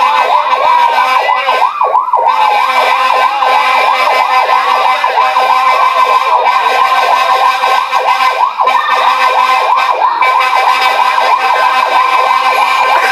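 Fire engine sirens yelping: several overlapping electronic sirens sweeping quickly up and down in pitch, a few sweeps a second, with no break.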